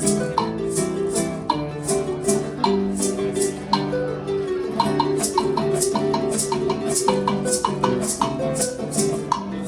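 Instrumental break of a bolero played on acoustic guitar and harp, with maracas shaking a steady, even rhythm over the plucked melody.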